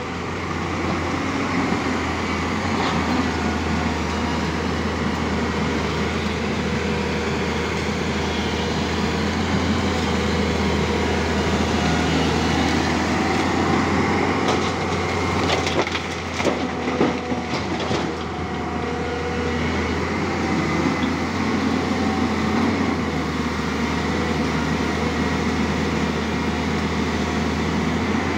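Tata Hitachi EX200LC hydraulic excavator running steadily under load, its diesel engine droning, with broken rock grinding and clattering in the bucket; a burst of sharp rock knocks about halfway through.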